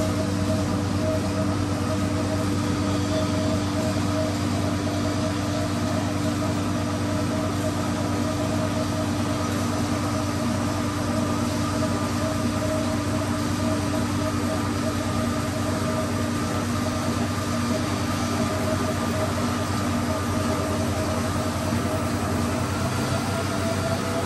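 Two-capstan wire drawing, straightening and cutting machine running: a steady mechanical hum with several held tones over an even machine noise.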